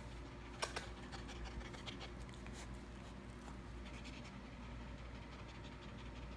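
Faint rustling and scratching on bedsheets as a dog moves about on the bed and is petted, with two sharp clicks a little over half a second in.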